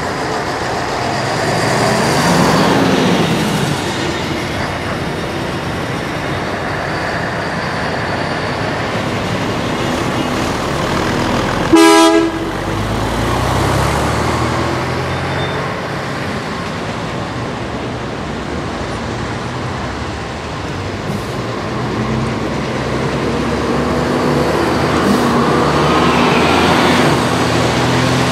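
Vintage buses and coaches driving past one after another, their diesel engines running and swelling as each one passes. About twelve seconds in, a single short horn toot sounds, the loudest moment.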